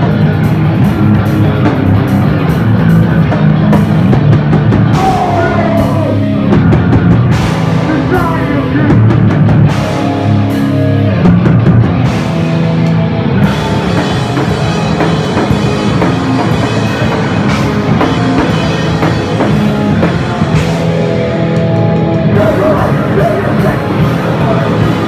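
Rock band playing live and loud, electric guitar and a drum kit with crashing cymbals.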